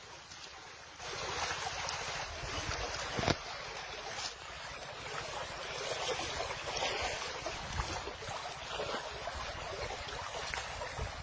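Rushing, splashing water, with a single sharp knock about three seconds in.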